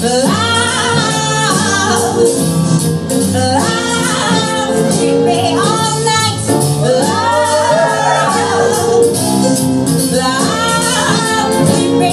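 A song playing: a voice sings short rising and falling phrases over steady instrumental accompaniment.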